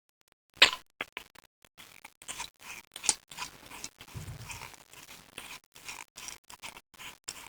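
Plastic and metal parts of a desoldering pump being handled and worked on by hand: irregular clicks, taps and scrapes, with a sharp click about half a second in and another about three seconds in.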